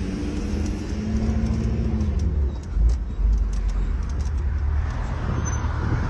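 Car engine and road noise heard from inside a moving car's cabin: a steady low rumble, with an engine hum that drops away about two seconds in.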